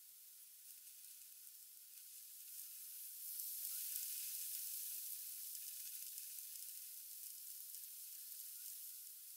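Rain on a window pane: a faint, high hiss that swells to its loudest about four seconds in, then slowly eases off.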